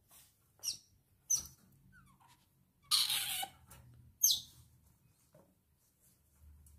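Baby otter giving short, high, falling squeaks, about four in all, with a longer, rougher noise about three seconds in.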